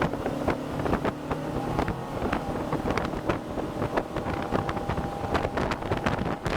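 Motorboat running on plane at cruising speed, its Mercury 150 hp outboard giving a steady engine hum that is clearest in the first couple of seconds. Wind rushes over the microphone, and there are frequent irregular knocks throughout.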